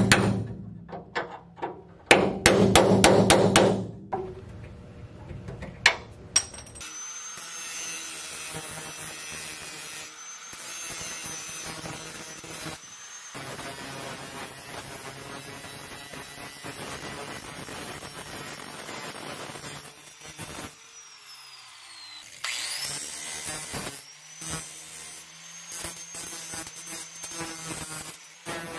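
A few hard metal blows, then a quick run of strikes, from a hammer driving a chisel into the steel floorpan seam of a Mazda Miata. After a short pause, an angle grinder with a metal cutting disc starts and runs steadily, cutting the steel. Its high whine drops once and climbs back about two-thirds of the way through.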